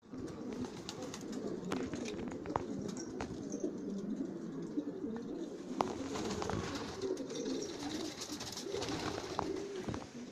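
A loft full of domestic pigeons cooing together in a continuous low chorus, with scattered sharp wing flaps and clatters as birds take off and land.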